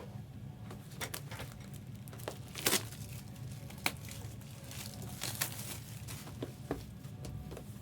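Plastic trading card packaging crinkling and tearing in short, scattered crackles as it is opened by hand, over a steady low hum.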